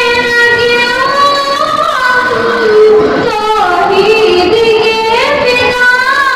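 A girl singing a naat, an Urdu devotional song, solo into a microphone, holding long notes and gliding slowly up and down between them.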